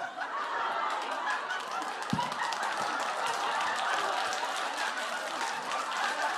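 Several young women laughing and talking over one another all at once, with scattered clapping.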